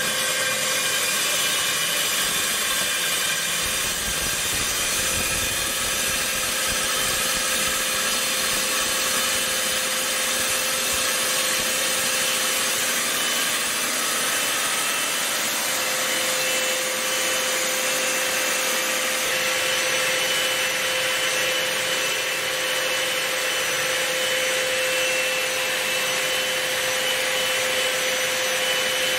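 Hilti DD 150-U diamond core drill running steadily, its water-fed diamond core bit grinding into a concrete wall: a continuous motor whine over grinding noise, at an even level throughout.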